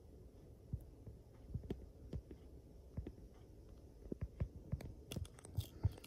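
Soft, irregular low thumps and clicks over a faint steady hum, with a quick run of sharper clicks about five seconds in.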